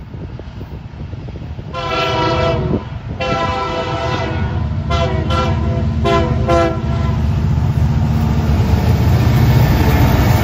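Diesel freight locomotive air horn sounding a chord in several blasts, two longer ones followed by shorter ones, over the low rumble of the diesel locomotives, which grows louder as the train approaches and passes close by.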